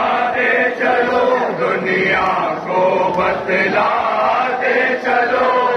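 A crowd of men chanting together in a Muharram devotional chant, in short phrases that break about once a second.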